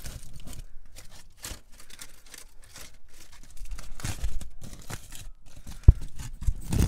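Aluminium foil crinkling and crackling in irregular bursts as fingers open a foil parcel. A single sharp thump about six seconds in.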